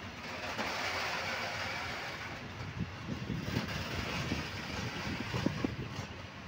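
Freight train of open-top goods wagons rolling past on the rails: a steady rumble of wheels on track, with irregular clanks and knocks that come more often from about halfway through.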